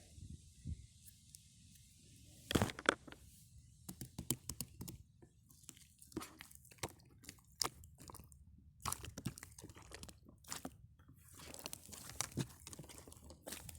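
Irregular crunching and crinkling clicks close to the microphone, like objects or packaging being handled, with a loud cluster about two and a half seconds in.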